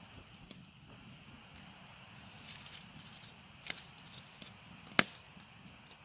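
Wood fire burning in a metal fire ring, crackling with scattered small pops over a low steady hiss, and one sharp, much louder pop about five seconds in.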